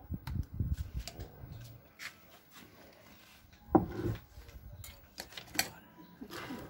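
Crockery and a spoon handled on a table. There are low bumps in the first second, then a single sharp knock a little under four seconds in, like a plate set down, and a few light clinks near the end.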